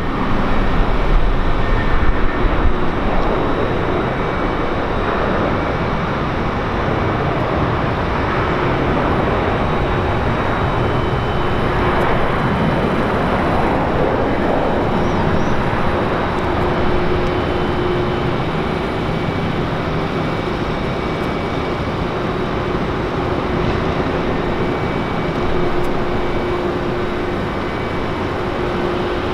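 Jet airliner engines: a loud, continuous rush with a few faint steady tones running through it, a little louder over the first few seconds.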